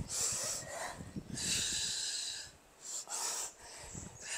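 Heavy, forceful breathing from exertion during ab exercises (weighted sit-ups and ab-wheel rollouts): three long hissing breaths, the middle one the longest.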